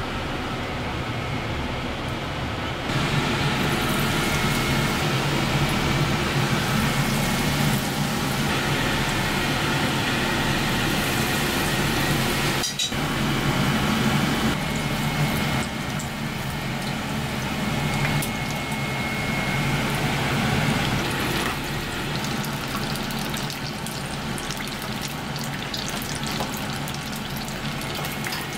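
Tempura frying in a deep fryer of hot oil: a steady sizzling and bubbling that grows louder a few seconds in, over a steady low hum.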